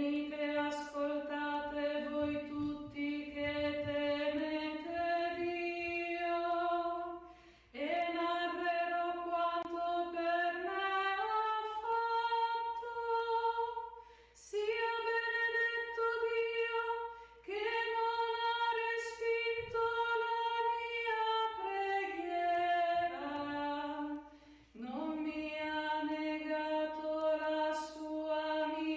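A woman singing the responsorial psalm solo and unaccompanied, in long held phrases with short pauses for breath between them.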